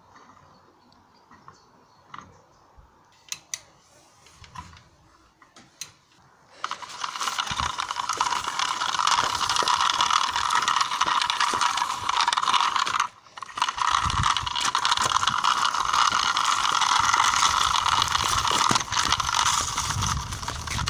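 Small electric motor and plastic gearbox of a toy Hummer H3 truck running at a steady whir, starting about six and a half seconds in after a few faint clicks. It cuts out for a moment around the middle and then runs on, with low knocks as the wheels go over rough dirt.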